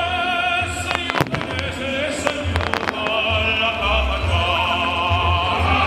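Fireworks going off, with a quick cluster of sharp bangs about a second in and a few scattered cracks after, over operatic singing: a high voice with wide vibrato, held on long notes and growing fuller about halfway through.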